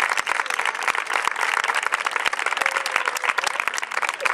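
Audience applauding: dense, steady hand clapping.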